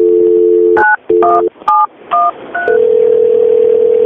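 Telephone line audio: a two-tone dial tone, then about five touch-tone (DTMF) digits dialed in quick succession, then a steady ringing tone about two seconds long as the call to the mechanic rings through.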